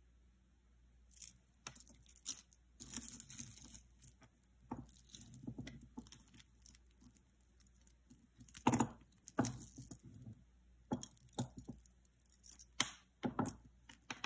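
Jewelry being handled on a cloth-covered table: metal chains and stones clinking and jangling, with rustling. A sharper knock about nine seconds in is the loudest.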